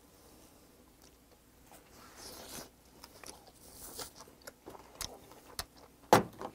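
Close-up chewing of a river oyster, with soft wet mouth clicks and smacks scattered through, and one sharp knock about six seconds in.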